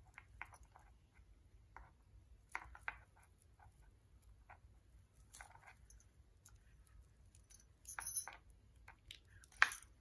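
Faint handling sounds: jute twine rustling and small scattered clicks and clinks as a plastic shower-curtain clip is threaded onto twine strung with beads and a jingle bell, with a sharper click near the end.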